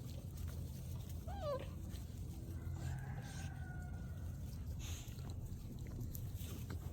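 A puppy whining: one short, wavering high cry about a second in, then a faint, drawn-out falling whimper, over a steady low hum.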